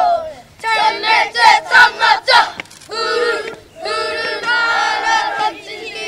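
A group of schoolboys chanting a haka in unison: a run of short, rhythmic shouted phrases, then longer held chanted calls in the second half.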